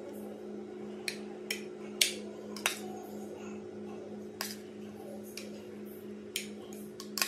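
A metal spoon clinking and knocking against a bowl and a glass baking dish as potato wedges are spooned in: about seven sharp knocks at uneven intervals, the loudest about two seconds in. A steady low hum runs underneath.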